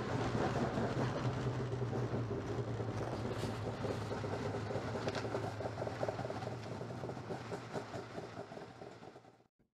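Arctic Cat snowmobile engine running inside an enclosed trailer, a steady low drone with the haze of exhaust smoke of a warming two-stroke. The sound fades over the last couple of seconds and cuts off just before the end.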